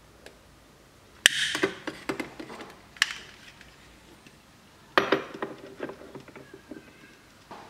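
Small metal pieces clattering: sharp knocks about a second in, a single click at three seconds, and again at five seconds, each trailing off in brief rattling and a short metallic ring. The later clatter is a miniature iron wok being set down onto a toy gas stove's burner grate.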